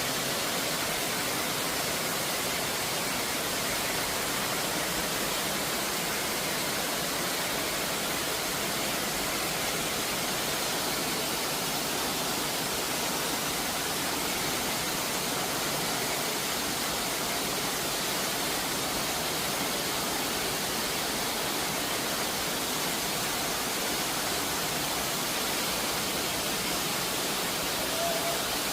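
Steady, unbroken rush of a mountain stream's water flowing and falling over rocks.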